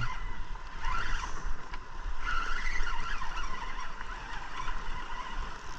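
Spinning reel being cranked in against a hooked Arctic char, under steady wind rumble and water noise.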